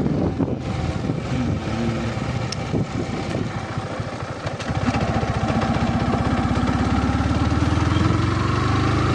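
Motorcycle engine running while riding, heard from on the bike. It picks up speed from about five seconds in, its pitch rising steadily.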